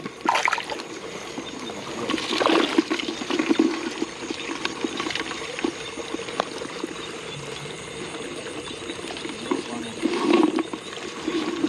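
Shallow paddy water splashing and trickling as a hand and feet move through the water and soft mud of a flooded rice field, in uneven bursts with small clicks and rustles.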